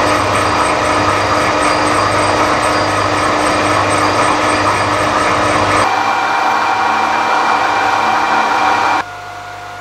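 Carbide insert taking a cut on a bronze disc on a Harrison 190 lathe, with a loud, steady ringing squeal of chatter. The pitch shifts about six seconds in, and near the end the cut stops, leaving the lathe running more quietly. The ringing comes from a light finish cut with the insert's sintered, unlapped edge.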